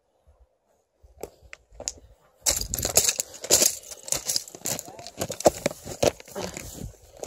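A person scrambling up through dry grass and brush over loose shale: a few clicks, then from about two and a half seconds in a dense run of crunching and rustling.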